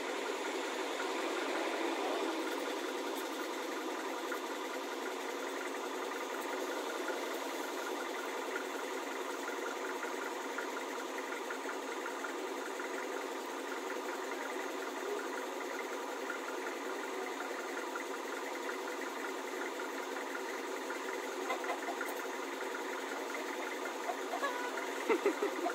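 An engine idling steadily, with a few short knocks near the end.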